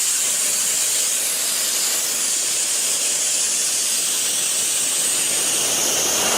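Compressed air hissing steadily out of the air jets of an air carbon arc gouging torch.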